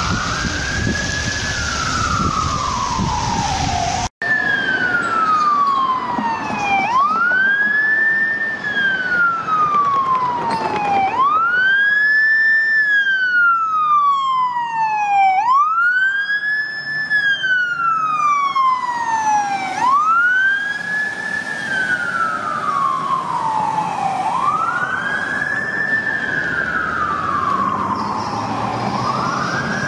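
Fire truck's siren wailing over street traffic. Each cycle rises quickly and falls slowly, repeating about every four seconds, with a brief break in the sound about four seconds in.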